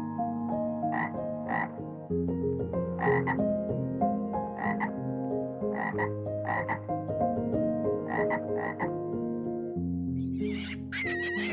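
Short animal calls coming in quick pairs, five pairs in all, over calm background music with slow held chords. A different, higher wavering call starts near the end.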